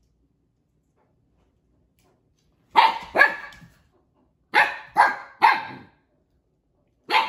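Siberian husky puppy barking in short, sharp yaps at the older husky that has taken its toy: twice about three seconds in, three more a couple of seconds later, and again near the end.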